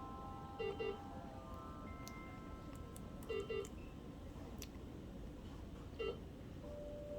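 Short electronic beeps: a quick pair about half a second in, another pair a few seconds later and a single one near the end, over faint steady tones.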